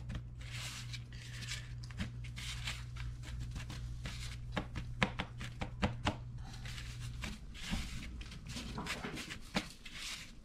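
Hands pressing and patting pieces of marinated fish into flour on a paper plate, soft rubbing and patting with several sharper taps. A low steady hum runs underneath and stops about seven seconds in.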